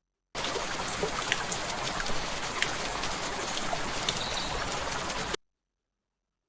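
AI-generated rain sound from the HunyuanVideo-Foley model: a dense, even patter of rain with scattered sharper drop ticks. It starts abruptly and cuts off suddenly after about five seconds.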